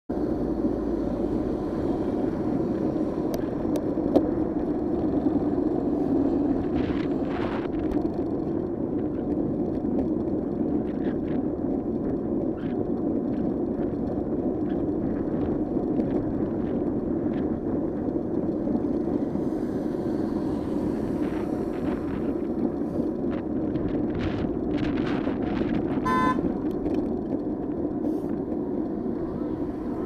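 Steady wind and road noise on a bicycle-mounted camera while riding, with a brief car horn toot near the end.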